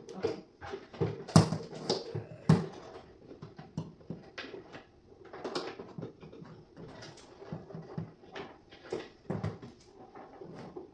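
Irregular clicks and knocks, two louder knocks about a second and a half and two and a half seconds in.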